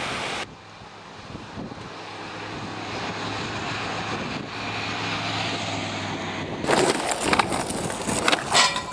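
Ocean surf briefly, then the steady drone of a motor vehicle, slowly growing louder. About two seconds before the end, skateboard wheels roll on concrete with sharp, loud clacks of the board.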